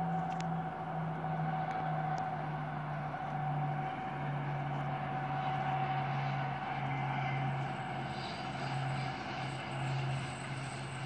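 Train approaching in the distance: a steady low drone that shifts in pitch a few times, with a fainter steady whine above it.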